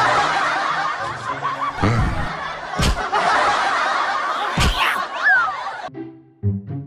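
Added crowd-laughter sound effect, many voices laughing together, breaking off abruptly about six seconds in. Three dull thumps sound under it, and light music with spaced notes follows.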